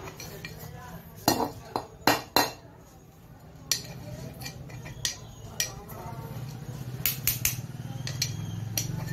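Screwdriver tip scraping and clicking against the metal bearing seat of a ceiling fan's end cover as it digs out hardened candle wax, in irregular sharp scrapes and clinks. A steady low hum runs underneath.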